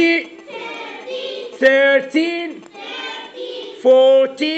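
A class of young children chanting the English number "thirteen" in unison, twice, in a sing-song with the pitch dropping on the second syllable. Quieter speech comes between the chants.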